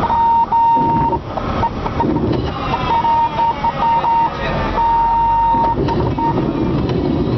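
A cockpit warning horn in a Cessna 172RG sounding as a steady high beep in short on-and-off chirps, with one longer tone of about a second near the five-second mark, stopping about six seconds in. Underneath is the steady noise of the engine and the wheels rolling on a dirt runway.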